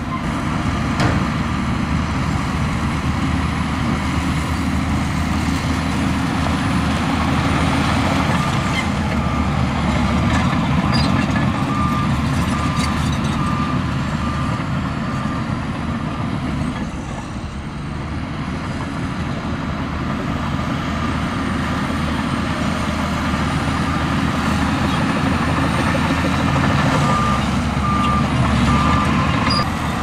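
Heavy diesel construction machine running steadily under load, with its reversing alarm beeping at an even pace through roughly the first half and again near the end.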